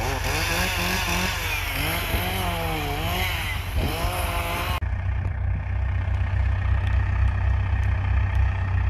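A chainsaw revs up and down for about five seconds, then stops abruptly. Under it, the diesel engine of an International 845 XL tractor runs steadily throughout.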